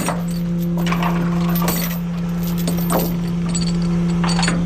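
Steel tie-down chain clinking and rattling as it is handled with a load binder, a string of sharp metal clinks over a steady low hum.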